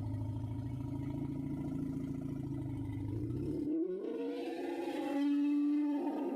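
Sound effect of a woolly mammoth call: a low, pulsing rumble for about three and a half seconds, then a higher bellow that rises in pitch and settles on a steady tone.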